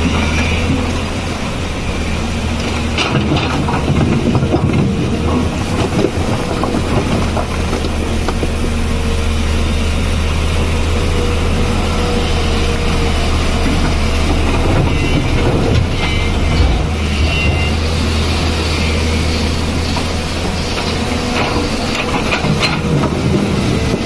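Tata Hitachi EX215LC crawler excavator's diesel engine running steadily under digging and loading work. Rocks clatter and knock several times, as the bucket digs into the loose rock pile and dumps its load into the steel tipper body.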